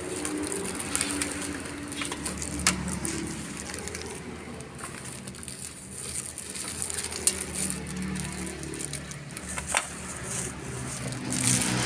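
Scattered clicks and light rustling of a digital scale and its packaging being handled, with a faint low hum underneath.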